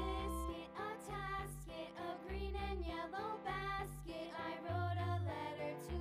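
Background music: a melody over a bass line that changes note about every second.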